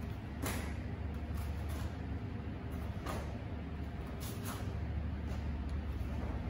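Taekwondo uniform snapping and swishing with a child's strikes and blocks during a poomsae form: about nine brief sharp sounds at irregular spacing, over a steady low hum in the gym.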